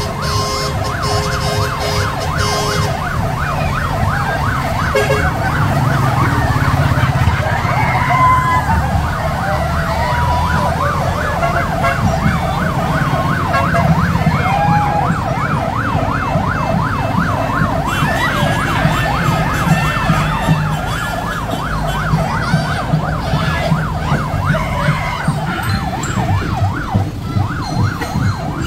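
Emergency-vehicle siren sounding a rapid rising-and-falling yelp, over a steady low rumble.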